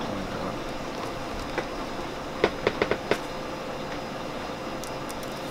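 Steady mechanical hum of kitchen machinery with a faint steady tone. Over it come a light tap about one and a half seconds in, then a quick run of four or five sharp taps about halfway through.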